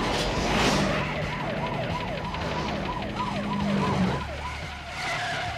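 Police car siren yelping, its pitch sweeping up and down two to three times a second, over the steady drone of a car engine at speed that drops away about four seconds in. Near the end the siren settles into one held tone.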